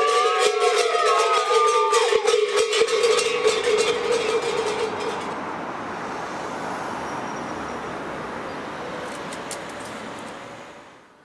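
Bagpipe-like folk music: a steady drone with a wavering melody above it and rapid sharp percussive clicks, fading out about five seconds in. After it comes a steady rush of distant traffic, which drops away just before the end.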